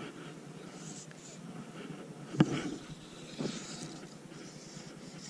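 Handling sounds of fly fishing: fly line being stripped in by hand in short pulls, with a sharp knock about two and a half seconds in and a softer one about a second later.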